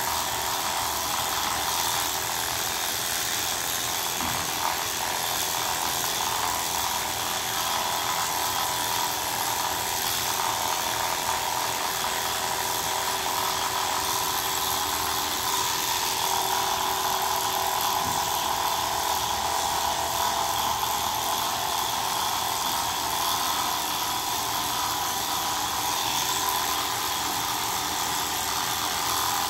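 Corded electric pet clippers buzzing steadily as they shave through a Persian cat's long fur.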